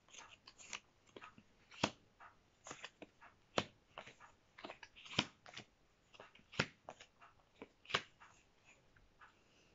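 A small deck of Lenormand cards being shuffled by hand and a card laid down on the table: a quiet, scattered string of sharp card snaps and taps, the strongest about every second and a half.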